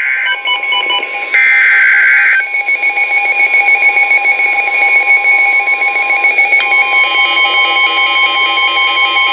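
Emergency Alert System alert on NOAA Weather Radio for a severe thunderstorm warning: two short bursts of screeching digital header data, then the long steady warning alarm tone with rapid beeping laid over it.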